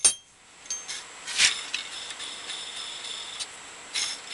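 A few sharp metallic clinks and taps as steel clamp parts of a cylinder boring bar are handled and set, the loudest about a second and a half in, some leaving a brief high ring.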